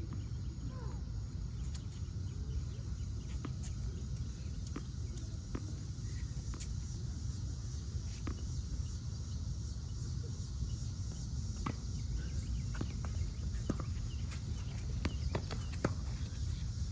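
Tennis rally on a hard court: scattered sharp knocks of the ball off racket strings and court at irregular intervals, over a steady high insect chorus and a low rumble.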